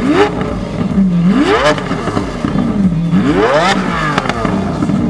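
Lamborghini Aventador S's 6.5-litre V12 blipped three times from idle, each rev rising quickly and dropping back to a steady idle. The third rev climbs highest.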